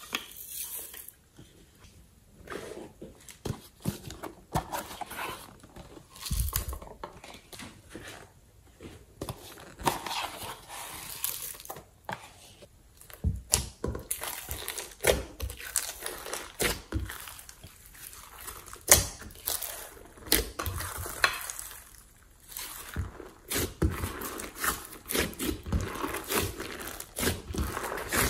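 Slime being kneaded and squished by hand, with irregular sticky clicks, pops and crackles.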